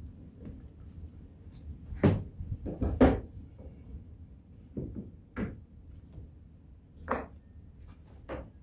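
Scattered knocks and clatters of wooden boards being handled and set in place, the two loudest about two and three seconds in, with smaller knocks later.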